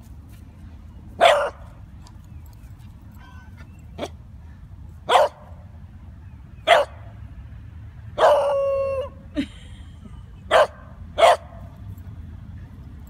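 Beagle puppy barking: five short sharp barks spaced a second or more apart, and one longer drawn-out bark lasting about a second, about eight seconds in.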